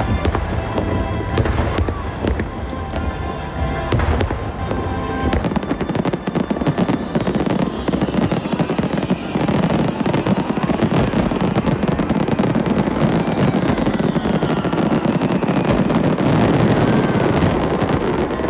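Fireworks or firecrackers going off in a dense, rapid crackle of pops that thickens into an almost continuous rattle about five seconds in.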